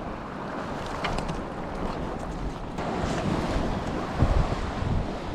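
Wind buffeting the microphone over a steady wash of sea surf, with stronger gusts near the end.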